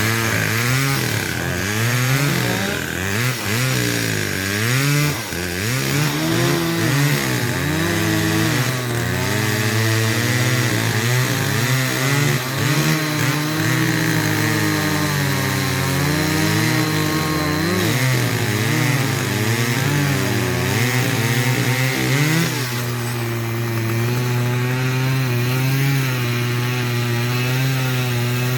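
Chainsaw running while cutting poplar wood, its engine pitch rising and falling as the chain loads up in the cut. It settles to a steadier pitch about three quarters of the way through.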